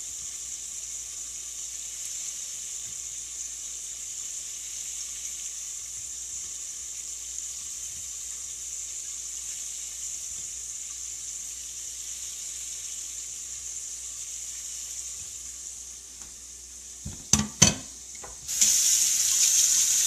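Diced salt pork fat (scrunchions) rendering in a pot over low heat, giving a steady, even sizzle. Near the end there are two or three sharp knocks, then a much louder steady rush of hissing noise starts.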